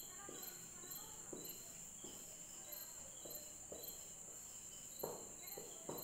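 Marker pen writing on a whiteboard: a few faint short strokes, the strongest about five seconds in. Under them is a steady high chirping about twice a second.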